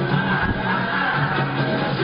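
A live pop-rock song with male vocals sung into handheld microphones over a backing band. The sound is dull and thin, recorded off a television broadcast.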